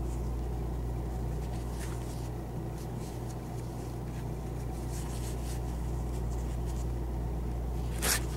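Faint scratchy rustling of yarn and a crochet hook as single crochet stitches are worked by hand, over a steady low hum. A brief, louder rustle comes near the end.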